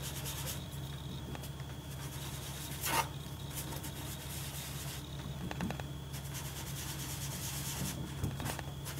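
A small piece of ink sponge scrubbing ink onto cardstock in a circular motion, a soft, repeated rubbing with one louder stroke about three seconds in. A steady low hum runs underneath.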